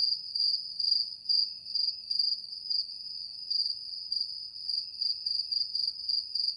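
Crickets chirping: a steady high-pitched trill pulsing about twice a second.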